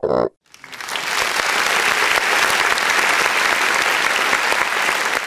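Crowd applause, swelling up about half a second in and then holding steady, with a dense crackle of many hands clapping. It is preceded by the tail of a short cartoon animal grunt.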